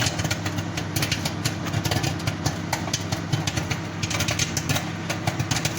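Microwave popcorn popping inside a running microwave oven: rapid, irregular pops over the oven's steady hum.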